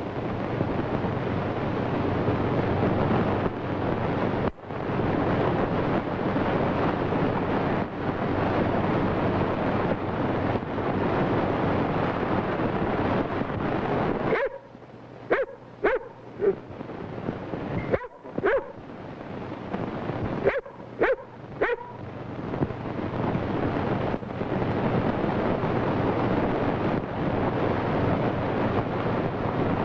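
German Shepherd dog barking in short sharp yelps, about eight in three quick clusters in the middle. The barks come over a steady loud rushing noise that drops out while they sound.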